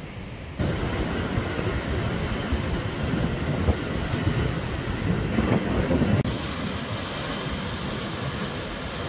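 Sea surf breaking on rocks: a steady rushing noise that starts suddenly about half a second in and changes character about six seconds in.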